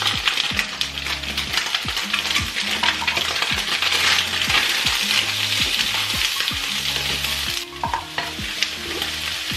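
Diced chicken, tofu, cherry tomatoes and spring onion sizzling in hot oil in a frying pan, with the light clicks of the food being stirred. The sizzle drops off suddenly near the end.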